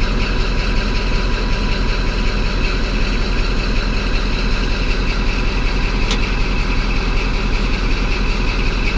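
Caterpillar D11 bulldozer's V8 diesel engine running steadily, with a brief click about six seconds in.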